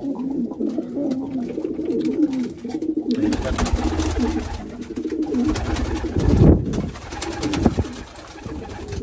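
Racing pigeons cooing in a loft. About three seconds in, the cooing gives way to several seconds of flapping and scuffling as two cock pigeons fight over a nest box. The cooing comes back near the end.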